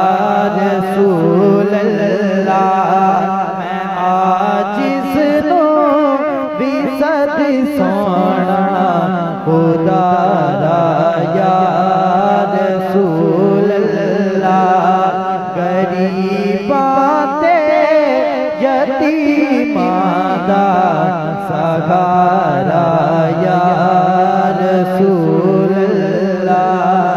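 A young male naat reciter singing long, ornamented melodic lines into a microphone over a steady low drone.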